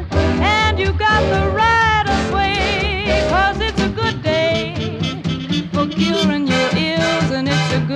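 Swing-style background music: a bending, sliding lead melody over a steady bass and accompaniment.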